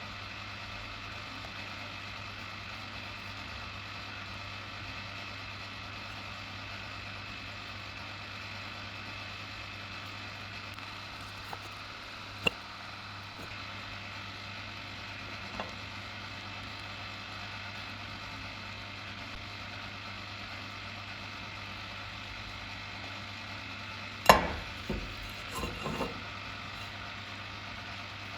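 Steady mechanical hum with a few faint clicks; near the end a sharp knock, followed by several smaller knocks.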